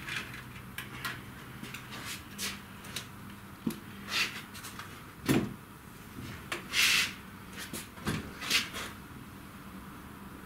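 Irregular clicks, taps and knocks from handling and fitting a clear door panel on a CNC router enclosure. The loudest knocks come about five, seven and eight seconds in.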